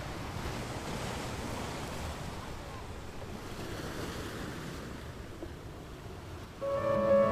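A soft, steady rushing noise, like surf or wind, swelling and fading a little. Near the end, music with long held notes comes in louder.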